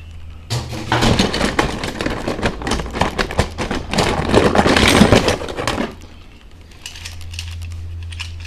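A heap of die-cast metal toy cars clattering and clinking as a hand rummages through them in a box, a dense jumble of small knocks for about five seconds that stops near six seconds in.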